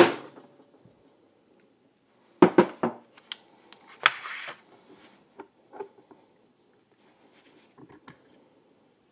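A mallet strikes the face of a Charter Arms Bulldog revolver's cylinder once, sharply, to knock the cylinder off the crane past its internal retaining ring. About two and a half seconds later comes a quick run of three or four lighter metal knocks, then small clicks and a brief scrape as the steel parts are handled.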